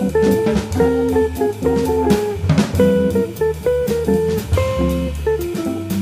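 Small jazz group recording: an electric jazz guitar plays the tune's theme melody at a medium swing tempo. Held bass notes and a drum kit with cymbals play under it.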